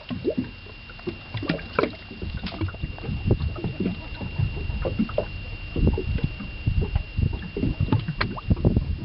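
Irregular knocks and thumps on a small fishing boat, with water lapping at the hull. A faint, steady high tone sounds during the first two and a half seconds.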